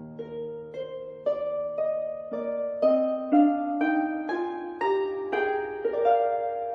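Background music of plucked-string notes, about two a second, in a melody that climbs in pitch.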